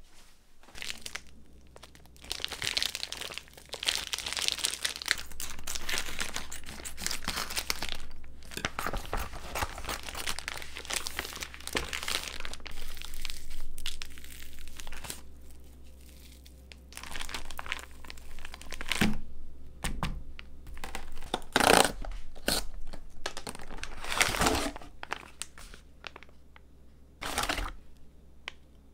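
Plastic packaging crinkling and tearing as a vacuum-sealed slab of raw pork is pulled out of its pouch. Rustling runs on through the first half, and a few sharper, louder crackles of packaging being handled follow in the second half.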